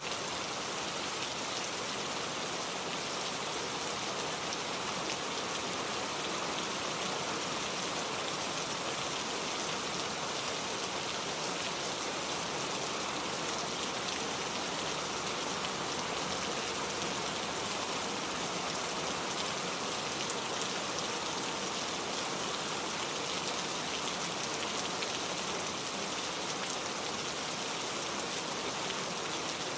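Steady rain falling, a dense, even hiss with fine pattering of drops on a surface.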